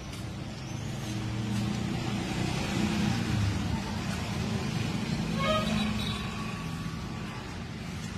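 Steady low rumble of road traffic, with a brief higher chirp about five and a half seconds in.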